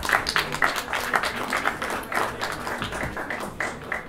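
Audience applause: many hands clapping in an irregular patter.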